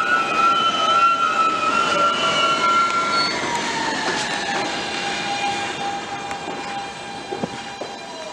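R160 subway train braking to a stop. A high steady tone stops about three seconds in, while the motor whine falls in pitch as the train slows, and the sound fades to a few light clicks near the end.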